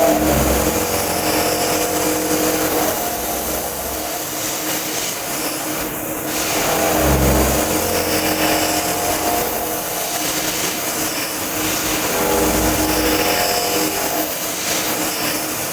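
CNC knee mill cutting steel with a half-inch four-flute end mill spinning at about 3,000 RPM on an adaptive toolpath: a steady machining sound with held tones that swells louder at the start, about seven seconds in and again around twelve seconds, as the feed rate changes.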